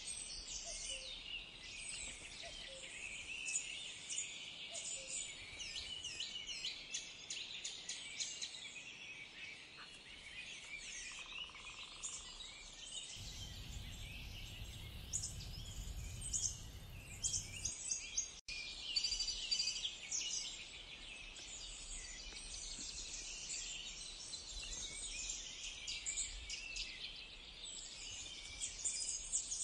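Outdoor bird chorus: many small birds chirping and calling over one another in quick, high chirps. From about 13 to 18 seconds in, a low wind rumble lies under them and then cuts off.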